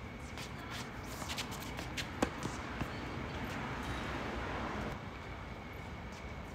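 Tennis ball impacts on a hard court: a pair of sharp pops about two seconds in, a quarter-second apart and the second louder, with a few fainter knocks around them.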